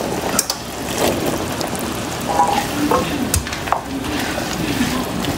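Boiled chickpeas tipped from a stainless steel bowl into a hot pan of spinach curry, then stirred in with a silicone spatula. The pan sizzles steadily under a few short knocks and scrapes.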